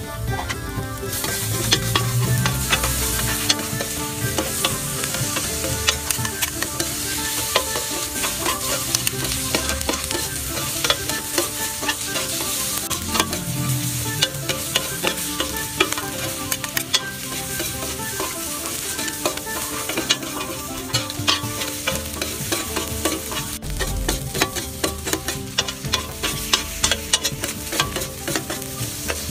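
Squid and shrimp sizzling on a flat griddle while a metal spatula scrapes and taps across it, stirring them together with chili paste. The frying hiss is steady, broken by frequent sharp clicks of the spatula.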